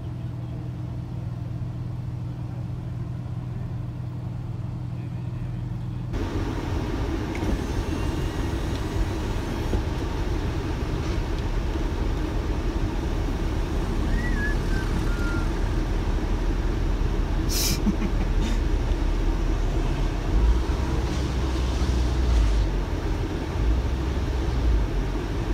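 Porsche sports car engines running at low speed. A steady low hum changes abruptly about six seconds in to engine and road noise heard from inside a car following a Porsche 911, with a deeper engine rumble from about twenty seconds in.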